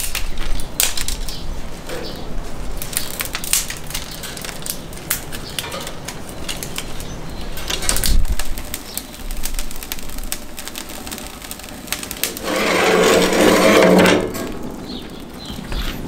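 Dry twig kindling crackling in a metal barbecue grill as the fire catches, with scattered sharp clicks and pops. Near the end a louder sound lasts about a second and a half.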